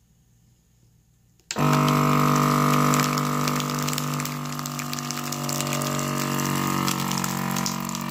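Ziploc countertop vacuum sealer's pump switching on about a second and a half in and running with a steady hum, drawing the air out of a bag of cured salmon eggs.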